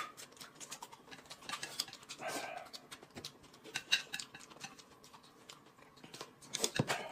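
Quiet eating sounds at a table: chopsticks clicking against plates and noodles being picked up and chewed, as a string of small, sharp clicks. A louder cluster of clicks comes near the end.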